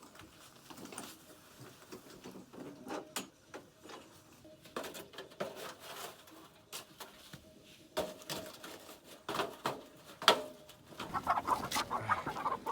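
Chickens clucking, with scattered clicks and knocks; the calls come thicker near the end.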